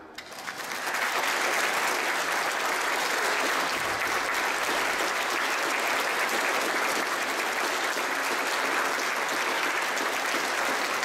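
Concert audience applauding, building up within the first second and then holding steady.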